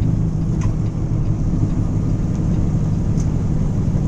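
Steady low drone of a vehicle's engine and tyres while driving at highway speed, heard from inside the cab.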